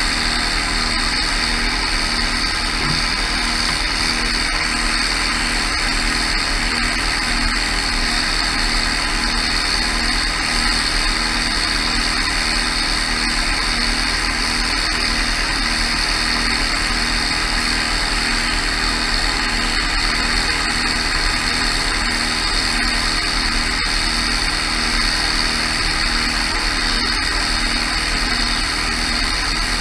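Tractor and orchard sprayer running steadily while applying the first oil spray to apple trees: a constant engine drone under the loud rushing hiss of the sprayer's fan and mist.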